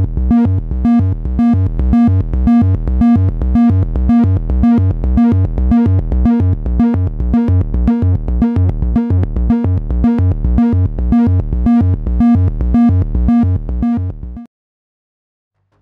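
Eurorack modular synthesizer built entirely from Make Noise Maths modules playing a repeating electronic pattern: a steady pulse of bass thumps and pitched tones, about two and a half beats a second, cutting off suddenly near the end.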